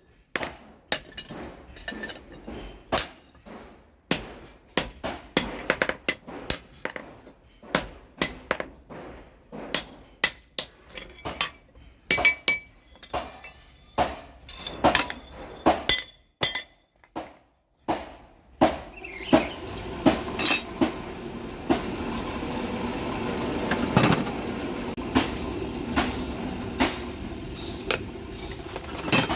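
Hand hammer blows on steel against an anvil while forging a billhook blade: sharp, ringing strikes about two a second, pausing briefly about two-thirds of the way through. After that pause a steady noise runs under the continuing blows.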